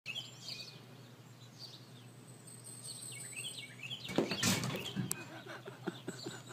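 Faint bird chirps, then about four seconds in a short, loud rushing scuffle as a puppy leaps at a cat asleep in a pet bed, followed by a few light taps.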